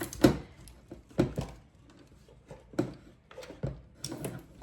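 Scattered clicks and knocks of string trimmer parts being handled and fitted together during assembly, sharpest about a quarter second in and just over a second in.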